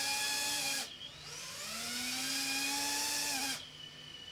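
Brushless motors and propellers of a sub-250 g FPV quadcopter spinning up twice with a rising whine. The first run drops off about a second in, and the second runs for about two and a half seconds before falling away. The quad is armed with the throttle at zero, and the pitch stick is tipping it forward and back as a pre-flight tilt check.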